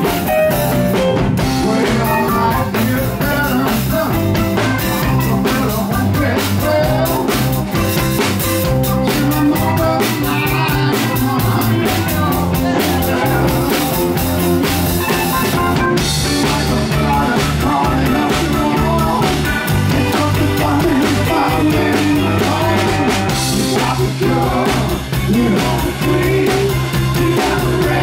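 Live electric rock band playing: drum kit, electric bass, electric guitars and keyboard.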